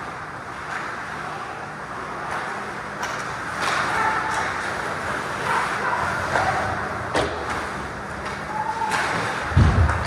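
Ice hockey play in front of the net: skates scraping the ice and sticks and puck clacking, with a few sharp clicks and a heavy low thump near the end.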